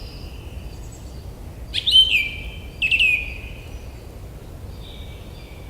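Forest birds calling. Two louder calls come about two and three seconds in, each a quick downward sweep into a short held note, with fainter chirps around them over a soft steady background hum.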